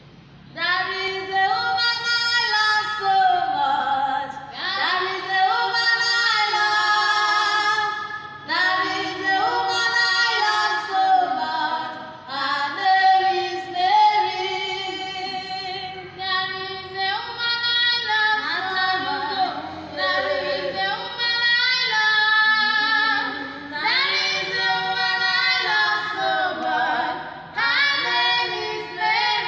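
Two girls singing a song together, in long held phrases with short breaks between them.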